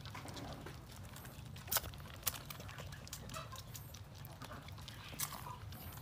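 Goat kids sucking water from feeding bottles: faint, irregular wet sucking clicks over a low steady hum.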